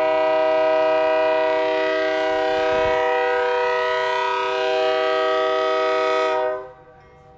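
Locomotive air horn sounding one long, steady multi-tone chord during a horn test, then cutting off about six and a half seconds in.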